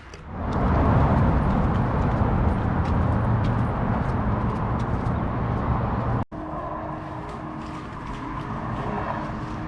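An engine running with a loud, low, steady sound that starts about half a second in. It drops out briefly about six seconds in, then carries on more quietly.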